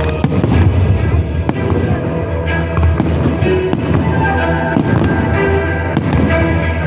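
Aerial fireworks bursting in rapid succession, many sharp bangs and crackles, over loud music with a steady beat.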